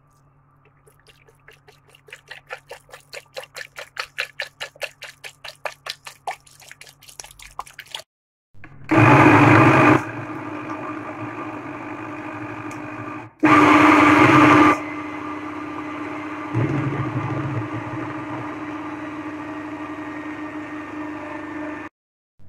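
Milk pouring into a blender jar in rhythmic glugs that grow louder. Then a countertop blender motor blends boiled cassava and milk: two short louder bursts about nine and thirteen seconds in, with steady running at a lower level between and after them.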